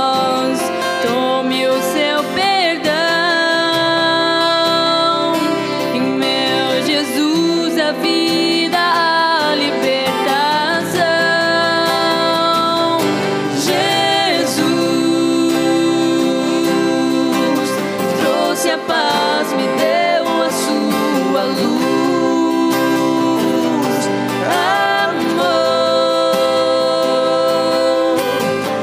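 Live music: a song played on guitar with singing.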